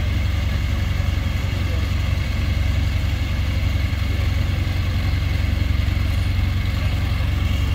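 An engine idling steadily: a low, even drone with a faint steady whine above it.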